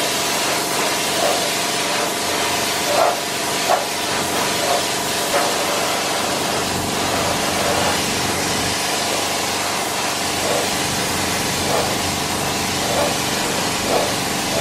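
Compressed-air gravity-feed spray gun hissing steadily as it sprays black mica base coat onto a motorcycle body panel, with a steady hum of machinery underneath.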